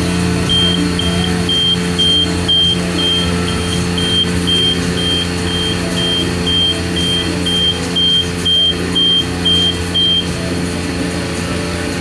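Self-serve car wash bay's control panel beeping, about two short high beeps a second for some ten seconds, warning that the paid wash time is running out, over a steady machine hum.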